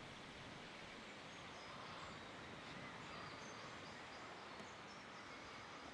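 Quiet outdoor ambience with faint, scattered bird chirps, and one faint click about four and a half seconds in.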